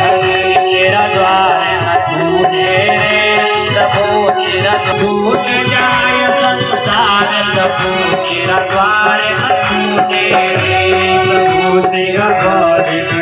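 Live Indian devotional music: a harmonium playing a melody over held tones, with a hand-drum rhythm and a man singing.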